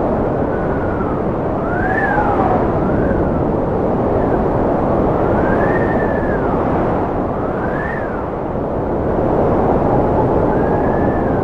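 Strong wind blowing with a steady, dense rushing noise, overlaid by whistling tones that glide up and back down in pitch about every second or two.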